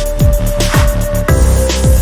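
Electronic background music with a steady kick-drum beat and a held synth note that changes pitch a little over halfway through.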